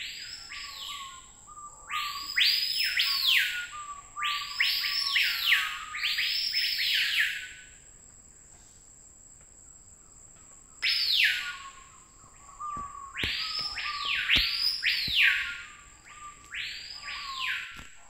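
A bird calling with loud whistles in runs of two to four, each note sweeping up and then falling steeply, with a pause of a few seconds midway. A steady thin high insect drone runs underneath.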